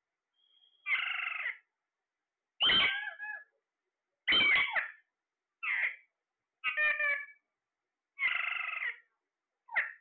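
Alexandrine parakeets calling: seven short calls, each well under a second, spaced one to two seconds apart.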